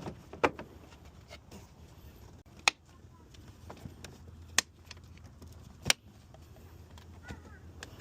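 Sharp plastic clicks and knocks, about four loud ones a second or two apart with fainter taps between: the air filter housing being handled and its clips snapped shut on a 2002 Suzuki XL-7.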